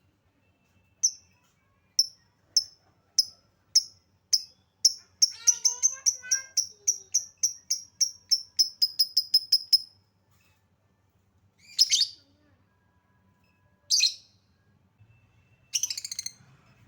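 Lovebird chirping: sharp high chirps about a second apart, quickening about five seconds in into a fast run of chirps that stops near the ten-second mark, then three longer, scratchier calls about two seconds apart.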